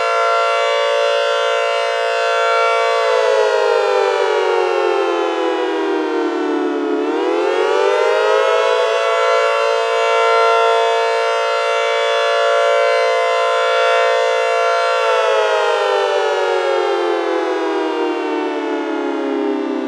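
Four-tone (quadtone) siren sounding a chord of several pitches at once. It holds steady, falls in pitch about 3 seconds in, climbs back up about 7 seconds in, holds again, then winds slowly down from about 15 seconds in.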